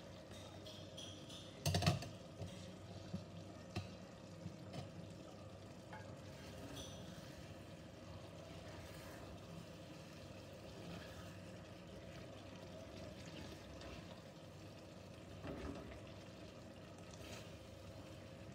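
Wooden spatula stirring thick fish and tomato curry in a cast-iron pan, with a sharp knock against the pan about two seconds in and a few lighter taps after it. The food sizzles softly underneath on a low flame.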